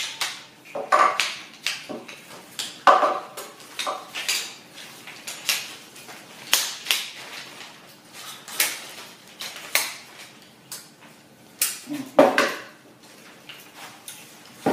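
Metal poles and frame joints of portable folding camp chairs clicking and clacking as they are snapped together and unfolded by hand, in irregular sharp knocks with handling rustle between them.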